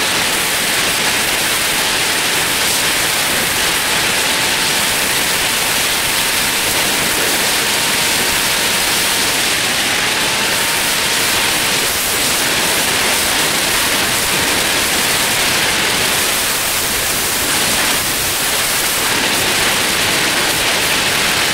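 Steady loud rushing hiss of wind and road noise while riding a vehicle along a paved road, with a faint thin whine underneath that shifts slightly in pitch about halfway through.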